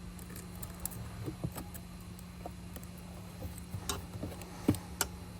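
Scattered light clicks and taps of small repair tools and phone parts being handled, a few sharper ones near the end, over a steady low hum.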